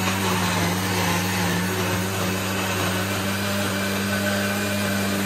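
Binatone countertop blender with a 500 W motor running steadily at speed, churning a jug of thick orange purée, a steady hum with a whirring rush over it; it switches off abruptly at the very end.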